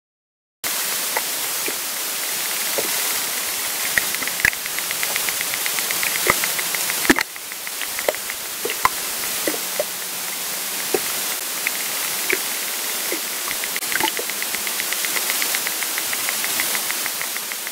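Hydrophone recording from the lake: a steady hiss with scattered single clicks and rapid, evenly spaced trains of clicks, taken by the recordist for echolocation clicks similar to dolphin and orca echolocation. It starts about half a second in, and a sharp click about seven seconds in is followed by slightly quieter hiss.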